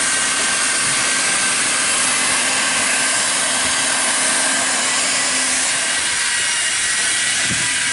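Handheld hot air plastic welder blowing a steady hiss with a faint motor whine, heat welding the seams of a TPO roofing membrane.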